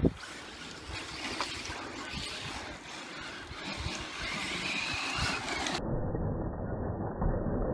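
Radio-controlled cars running on a dirt track: a steady haze of motor and tyre noise with a faint rising motor whine. About three-quarters of the way through the sound turns suddenly duller.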